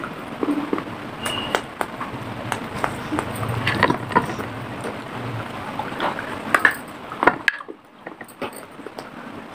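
Close-miked crunching and chewing of dry clay pieces bitten from a clay pot: many sharp, irregular crackles and snaps, with a short quieter spell near the end.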